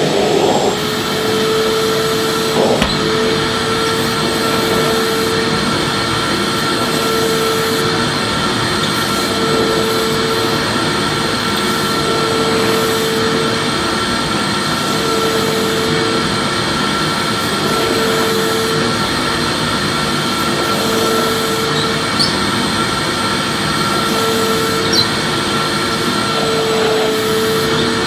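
Vacuum cleaner running steadily: a loud, even rushing noise with a constant high whine, and a lower hum that swells in and out about every two seconds.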